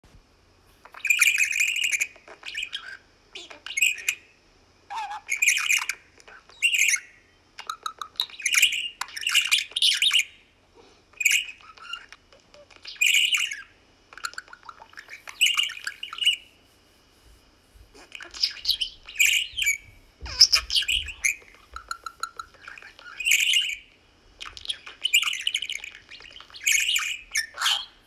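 Budgerigars chirping and chattering in short bursts, one every second or two with brief pauses between.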